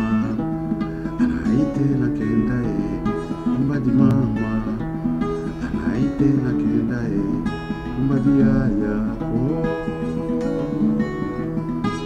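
Acoustic guitar strummed and picked in a steady rhythm, with a man singing along at times.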